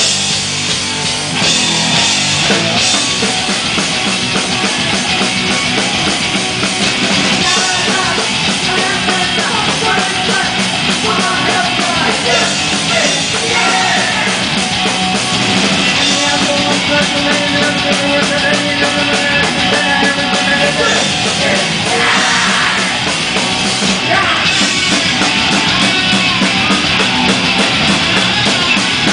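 Loud punk rock music played by a band, with electric guitars and yelled vocals.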